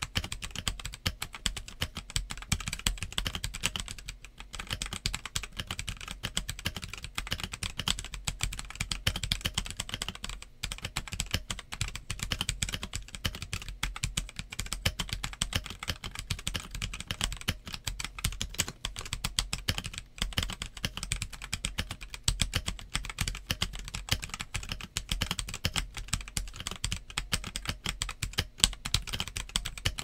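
Continuous fast typing on a Koorui MK082 mechanical keyboard with Jixian Brown switches and OEM-profile black and grey keycaps: a dense stream of keystroke clacks, with brief pauses about four seconds and ten seconds in.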